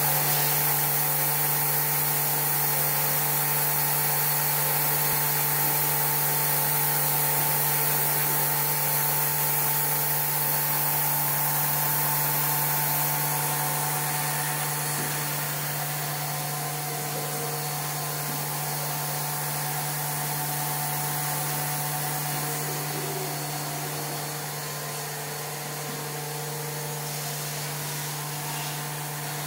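Steady machine hum: a constant low drone with a few steady higher tones under a bright hiss, easing slightly about halfway through.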